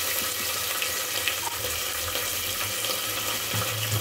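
Mustard seeds, chana and urad dal, dried red chillies, curry leaves and asafoetida sizzling in hot sesame oil in a pressure cooker: a steady frying hiss with a few faint crackles.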